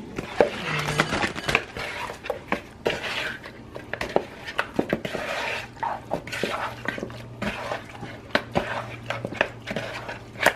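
Raw rabbit pieces being tossed and rubbed by hand in a plastic bowl to work in dry seasoning, making irregular clicks and knocks of meat against the bowl.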